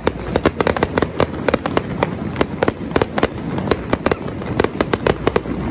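Aerial fireworks display: a dense, irregular barrage of bangs and crackles from many shells bursting at once, several a second over a continuous rumble.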